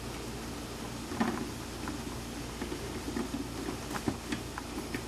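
Scattered small clicks and light taps of hardware being handled: the knife clamp, threaded rod and metal bracket plate being turned and shown, over a low steady hum.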